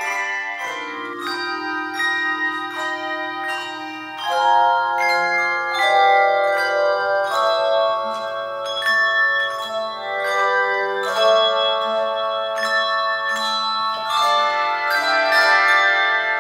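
Handbell choir playing: a melody and chords of ringing handbells struck one after another, each note sustaining and overlapping the next over a long held low bell.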